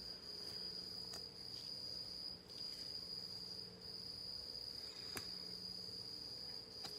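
A cricket chirping in a high, steady trill that breaks off briefly twice.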